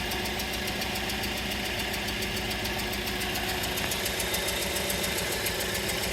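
Toyota Corolla engine idling steadily with the transmission in reverse, a fast, even ticking running over the top; this is the noise the owner is checking for when shifting.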